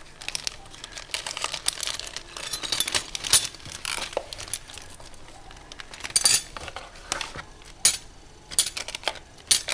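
Small metal charms clinking against each other and a plastic bag crinkling as they are handled and set into a cigar box: irregular light clicks and rustles, with a few sharper clinks.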